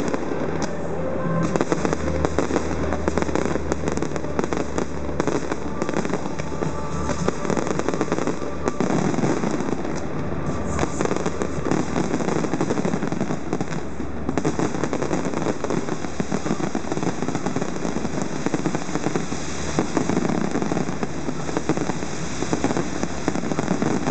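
Fireworks display: a dense, continuous barrage of bursts, crackles and pops with no pauses, and music underneath.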